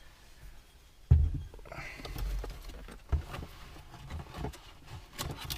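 Handling noise from steering-wheel parts and their packaging being moved about: a sharp thump about a second in, another knock around three seconds, and rustling with light clicks in between.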